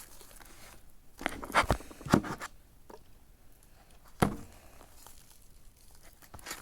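Homemade slime being kneaded and pulled by hand, giving off a few sharp sticky pops and crackles: a cluster between one and two and a half seconds in, and another single pop about four seconds in.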